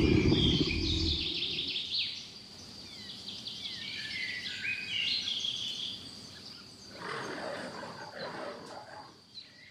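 Several wild birds singing and chirping in short, varied phrases, with a low rumble fading out in the first second or so and a brief rasping, noisy stretch about seven to nine seconds in.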